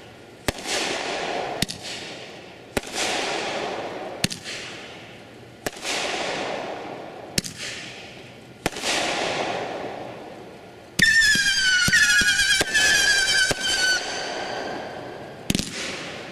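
500 gram consumer fireworks cake firing: sharp shots about every one to two seconds, each followed by a burst that fades over about a second. About 11 seconds in, several whistles sound together and slide down in pitch for about three seconds, then one more shot comes near the end.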